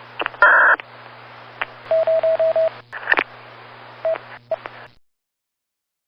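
Sci-fi comlink radio effect: thin static hiss over a low hum, broken by clicks and a loud squelch burst near the start, then a quick run of five short beeps about two seconds in and two single beeps later. It cuts off suddenly about five seconds in.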